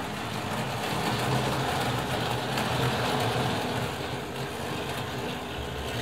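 Hornby Dublo model train running on three-rail metal track: a steady motor hum and wheel rumble that grows louder between about one and three and a half seconds in as it passes close by.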